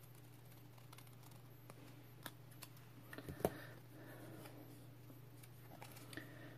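Small scissors snipping a paper sticker with faint clicks, then a cluster of sharper clicks and one louder knock about three and a half seconds in as the scissors are set down, followed by soft rustling of the paper sticker being handled. A low steady hum runs underneath.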